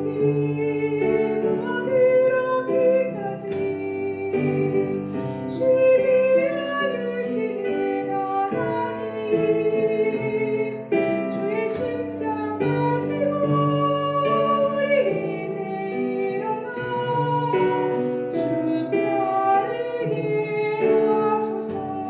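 A soprano singing a hymn in a classical style, holding notes with a wide vibrato, over an instrumental backing.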